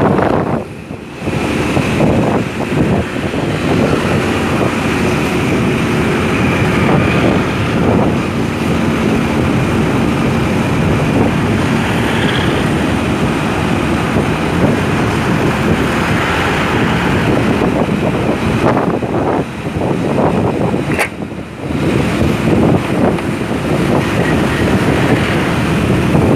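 Wind buffeting the microphone of a moving motorcycle, with the motorcycle's engine and the surrounding traffic running underneath. The wind noise eases briefly about a second in and twice more near the twenty-second mark.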